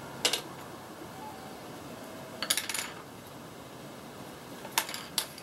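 A few short clicks and clinks of coloured pencils being handled and set down on a table: one early, a quick cluster in the middle, and two near the end, over a low steady hiss.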